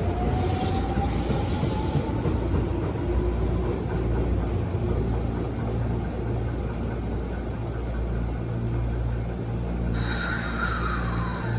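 Tobu 9000-series electric train with armature-chopper control accelerating, its chopper and traction-motor whine rising steadily in pitch over the rumble of the wheels. About ten seconds in a higher tone sets in and falls in pitch.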